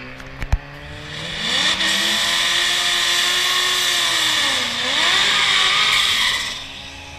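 Corvette V8s doing burnouts at a drag strip start: the engines rev up and hold high rpm with the hiss of spinning tires, dip briefly and climb again, then fall off near the end. The black C7's engine is a ProCharger-supercharged V8, and the other car is a twin-turbo V8. Two sharp knocks come about half a second in.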